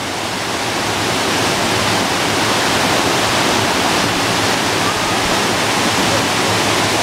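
Waterfall cascading in many streams down sloping rock, a steady, dense rush of falling water.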